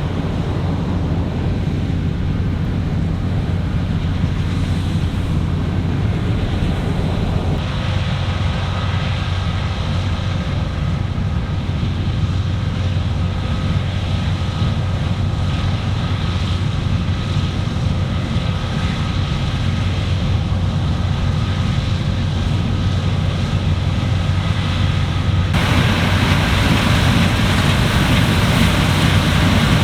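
Claas Lexion 8900 combine harvester running steadily while harvesting wheat: a continuous low engine drone with the whir of the machinery and some wind-like noise. The sound changes abruptly twice, about 8 and 26 seconds in, as if cut between different shots.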